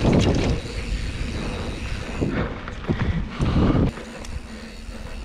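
Wind rushing over an action camera's microphone while riding a mountain bike, with scattered light clicks and rattles from the bike. The rush drops off sharply about four seconds in.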